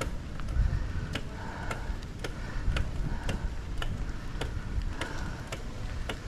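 Mountain bike drivetrain ticking as it is ridden, about two sharp clicks a second, over low wind rumble: the chain is rubbing somewhere in the drivetrain.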